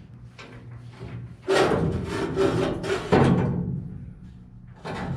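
Loud scraping and rubbing of a heavy part being pushed across a surface, in two long strokes that start suddenly about a second and a half in and again about three seconds in, with a third starting near the end.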